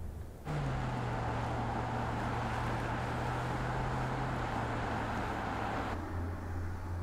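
Volvo S60 Polestar Engineered's four-cylinder engine running at a steady speed with tyre and road noise, as the car drives along a winding road. The louder sound starts abruptly about half a second in and gives way to a quieter, lower hum about six seconds in.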